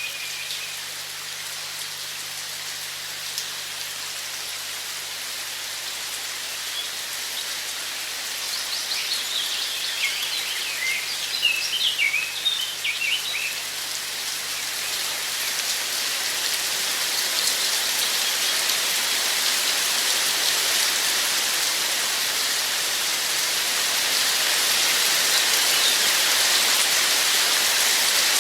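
Steady rain, a continuous hiss of falling drops that grows gradually louder. Birds sing chirping phrases over it at the very start and again for several seconds in the first half.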